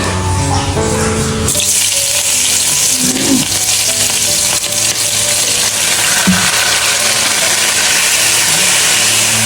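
Pickled cabbage (suancai) sizzling in hot oil as it is stir-fried in a pot. The sizzle starts suddenly about a second and a half in and then stays steady, with background music underneath.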